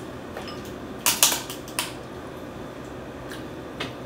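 King crab leg shell being cracked and snapped open by hand: a quick run of sharp cracks about a second in, then a lighter click near the end.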